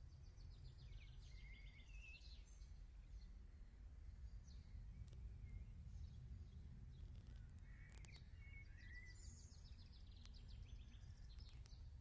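Faint songbirds singing: two spells of rapid trilled phrases, the second starting about seven and a half seconds in, over a steady low rumble.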